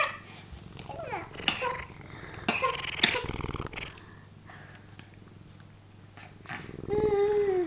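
Baby babbling and fussing in short scattered sounds, ending in a louder whiny cry near the end. About halfway there is a short low rumbling sound, close by.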